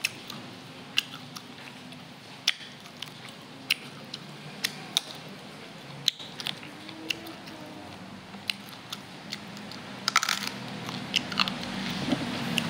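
Close-miked eating of boiled beef: chewing with sharp wet mouth clicks and smacks every second or so, and a quick cluster of louder clicks about ten seconds in.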